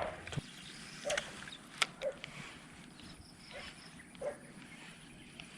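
Faint outdoor ambience with a few short animal calls spread about a second apart, and a sharp click or two.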